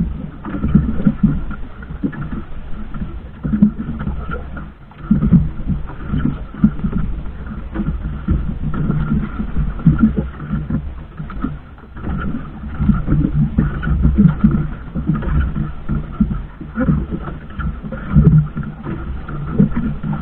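Small outrigger fishing boat at sea: a continuous, uneven low rumble that swells and dips, with a faint steady hum higher up.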